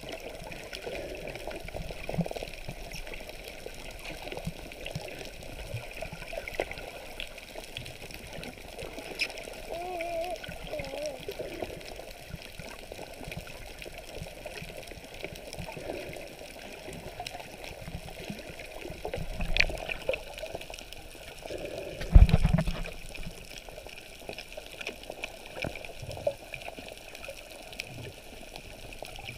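Muffled underwater water noise, sloshing and bubbling, with two dull knocks about twenty seconds in, the second the loudest.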